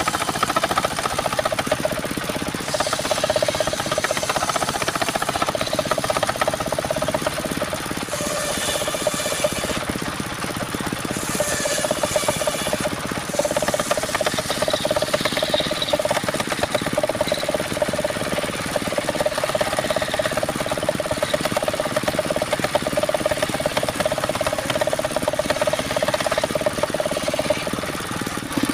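Engine-driven saw machine running steadily with a fast pulsing drone, with a higher whine rising in twice around the middle.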